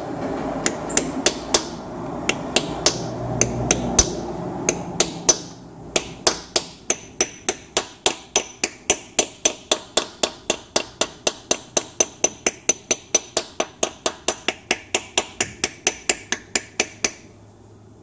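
A hammer tapping a brass or bronze drift against a new rear main crankshaft seal, light metallic taps at about three to four a second, working around the seal to seat it evenly and level with the housing surface. The taps stop shortly before the end.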